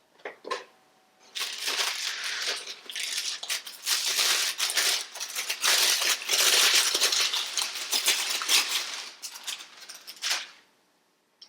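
Packaging wrap crinkling and rustling as it is handled and pulled open, starting after two short knocks and lasting about nine seconds.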